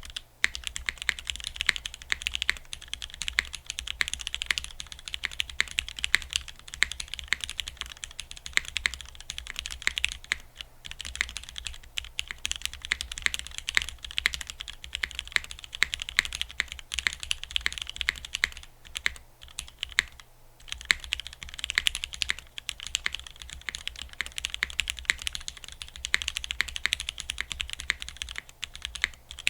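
Fast, continuous typing on a gasket-mounted aluminium-plate custom mechanical keyboard (Geonworks F1-8X) with lubed retooled Cherry MX Black linear switches and GMK Olive keycaps. The keystrokes come in a dense stream with a few short pauses.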